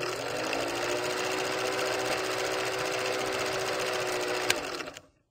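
Old film projector sound effect: the rapid mechanical clatter of a projector running, over a steady hum that rises in pitch as it gets up to speed at the start. There is a single sharp click near the end, then it cuts off.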